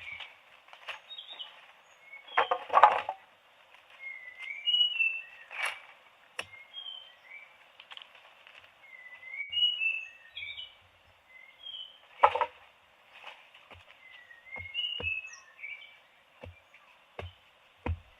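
Birds chirping: short chirps that slide up and down, repeated throughout, broken by a few loud knocks.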